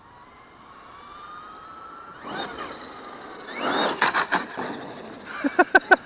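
Traxxas X-Maxx RC truck driven on its Hobbywing MAX6 ESC and brushless motor: a motor whine rising in pitch over the first two seconds, then loud rushes of tyre and drivetrain noise with a few sharp knocks. Near the end comes a quick string of short pitched pulses, about six a second.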